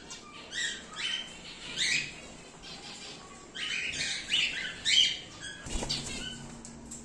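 Cockatiels calling: a string of short, chirping calls, one or two a second.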